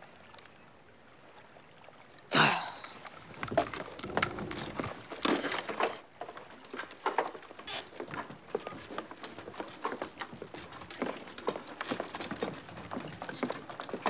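A sudden splash about two seconds in, then irregular dripping and pattering of water with small knocks.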